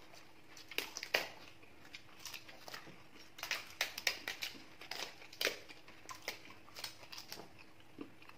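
Crisp papads (poppadoms) snapping and crunching as they are broken by hand and eaten: a series of irregular sharp crackles.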